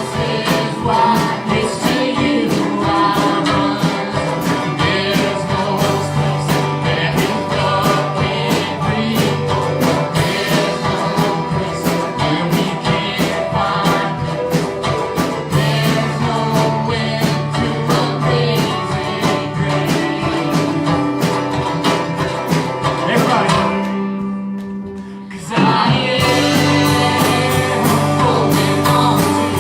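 Gospel-country worship music: singing over guitar and band with a steady beat. Near the end the band drops away for about two seconds to one held note, then comes back in full.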